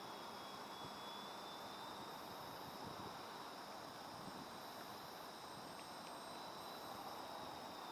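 Steady chorus of crickets, with short high chirping pulses about every two seconds and a faint thin whine that drifts slightly in pitch.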